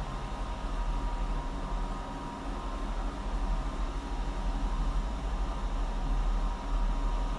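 Steady machinery noise on a car-factory floor: a constant low hum with faint steady tones above it.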